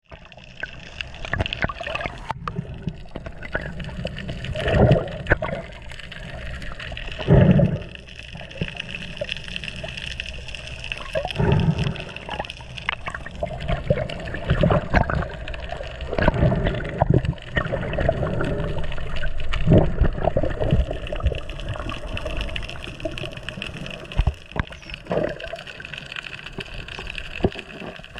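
Water gurgling and rushing around a submerged camera while a freediver swims, with louder low swells every few seconds and many small clicks and knocks.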